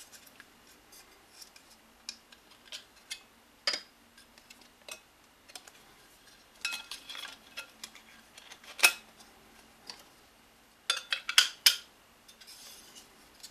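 Light clicks and clinks of an aluminium Noctua NA-HC3 heatsink cover and its colour inlays being handled and fitted by hand, with a sharper knock about nine seconds in and a quick run of clicks near the end.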